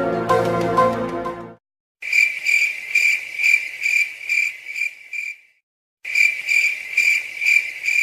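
Cricket chirping sound effect, the stock 'awkward silence' crickets: an even, high chirp a little over twice a second, played twice with a short silent gap between. A music clip ends about a second and a half in.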